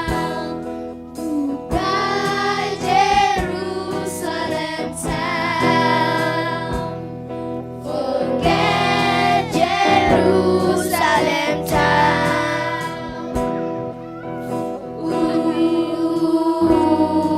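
A group of voices singing a slow song over sustained instrumental accompaniment.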